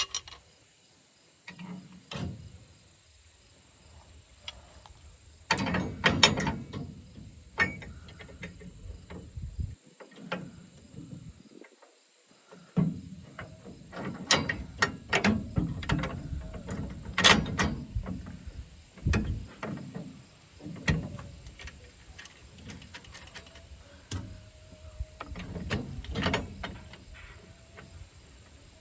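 Hand tools working on metal: irregular clanks, knocks and ratchet clicks, with short pauses, as sickle guards are removed and refitted on a soybean header.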